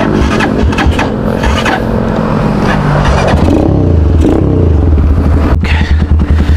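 Motorstar Z200 sport bike engine idling steadily while the bike stands still, its low hum getting a little firmer about halfway through.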